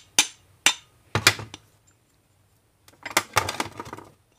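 A few sharp metallic clicks and taps, then about three seconds in roughly a second of rapid clattering, as a dirt bike's aluminium carburetor is handled and its float bowl is worked loose.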